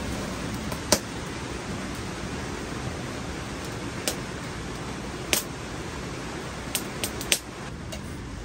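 Steady hiss of heavy rain, with about six sharp clicks or knocks scattered through it, most of them in the second half.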